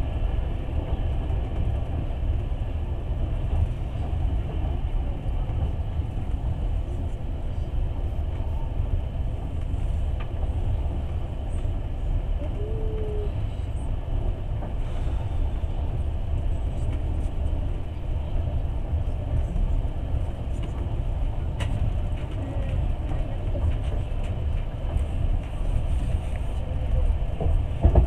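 Passenger train running at speed, heard from inside the carriage: a steady low rumble of wheels on the rails and carriage noise.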